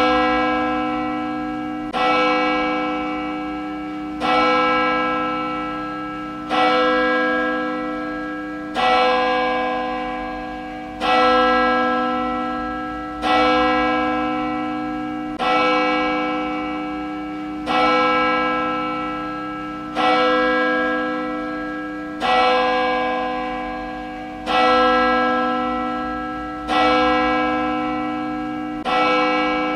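A church bell tolling slowly and evenly, about one stroke every two seconds, each stroke's ringing hanging on into the next.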